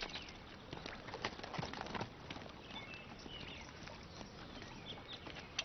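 Hooves of a saddled horse being led at a walk on a sandy path, with the men's footsteps: soft, irregular knocks. Birds chirp briefly in the background.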